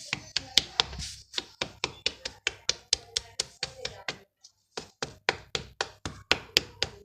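Dried yellow mud crumbles being crunched, a rapid series of sharp, crisp cracks at about four a second, with a brief pause about four seconds in.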